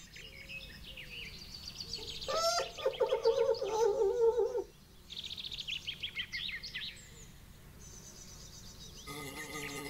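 Cartoon fly buzzing for about two seconds, starting with a quick rising whine, over birds chirping. Another insect buzz starts near the end.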